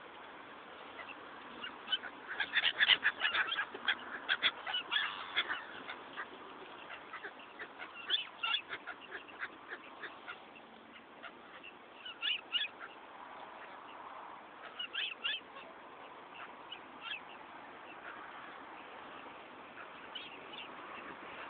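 Black swans pecking at a car, their beaks tapping on it in quick bursts. There is a long run of rapid taps about two seconds in, then shorter clusters every few seconds.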